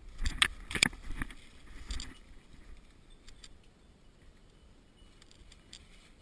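Dry oak leaves and twigs crackling and scraping against the head-mounted camera as it is pushed through dense brush. A loud flurry of crackles comes in the first second, another burst about two seconds in, then fainter scattered rustling.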